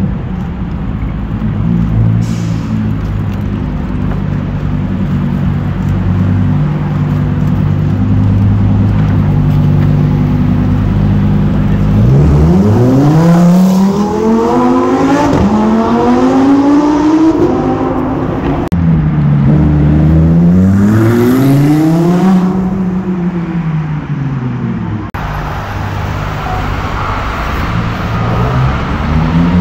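Lamborghini Huracán EVO Spyder's V10 engine running low and steady as the car rolls up, then revving hard about 12 seconds in, in a series of rising and falling sweeps in pitch. After a sudden cut near the end, an engine note starts to rise again.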